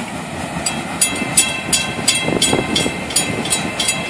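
Grade-crossing warning bell ringing about three times a second, over the steady rumble of a freight train rolling away down the track.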